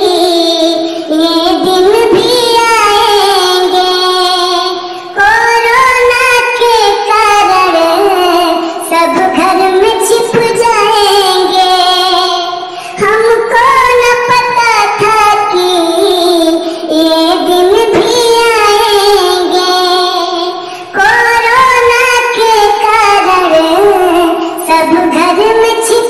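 A high-pitched voice singing a song, in long held phrases with brief breaks about every eight seconds.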